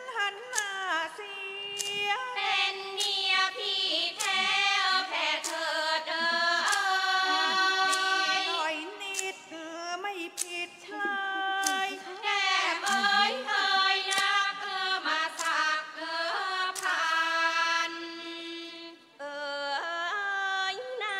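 A Thai classical female singer sings a slow, ornamented melody with long held notes and bending pitch. Sharp, regular strokes of small cymbals keep time beneath the voice.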